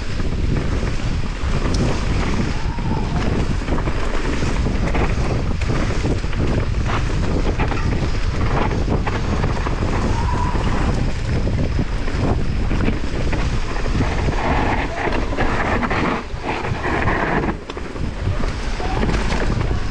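Wind buffeting the microphone on a fast mountain bike descent, over the rumble of knobby tyres on dirt and leaves and the bike rattling over bumps.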